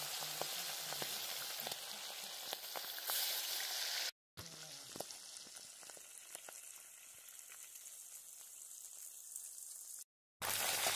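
Mutton marrow bones sizzling in hot oil in a metal kadai, a steady hiss with scattered crackling pops. The sound cuts out briefly twice, about four seconds in and near the end, and is quieter after the first break.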